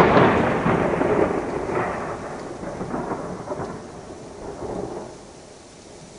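Thunderclap that starts suddenly and sharply, then rolls on in several rumbling swells that fade over about five seconds. Soft hail is falling throughout, leaving a steady hiss once the thunder dies away.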